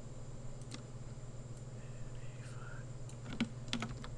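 Scattered computer keyboard key presses and mouse clicks, with a quick run of several clicks near the end, over a steady low hum.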